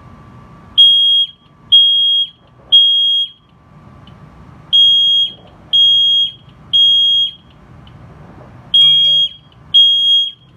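Fire alarm horn sounding the temporal-three evacuation pattern: a high, steady beep three times in a row, each about half a second long, then a pause before the next group of three.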